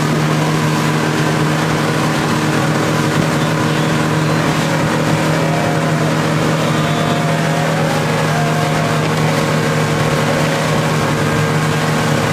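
Motorboat engine running steadily at speed under tow load, with the rush of wake water and air over it.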